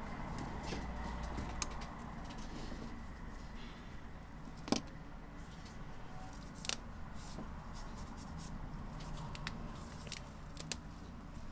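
A few sharp clicks and small taps over a steady low hum, the loudest click about halfway through.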